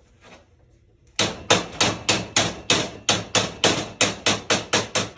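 Hammer tapping a new sleeve piece into a muffler pipe: a steady run of sharp metal strikes, about three a second, starting about a second in.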